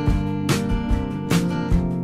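Background music: strummed acoustic guitar chords, struck about every half second.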